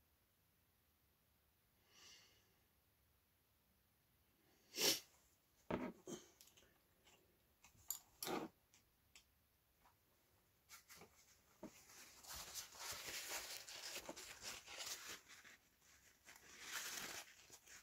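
Quiet handling of small plastic paint pots and their lids on a workbench: a sharp click about five seconds in, the loudest sound, then a few lighter clicks and knocks. From about eleven seconds in, a paper towel rustles as it is handled.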